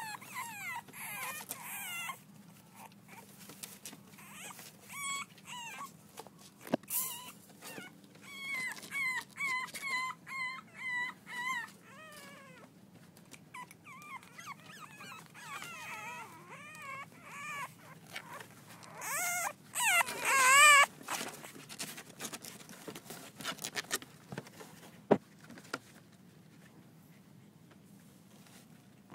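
Six-week-old French bulldog puppies whining as they play: a string of short, wavering high-pitched cries, with a louder run of cries about twenty seconds in.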